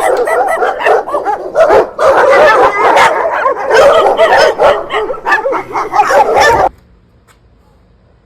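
Several dogs barking and yipping together in a dense, overlapping chorus that cuts off suddenly near the end.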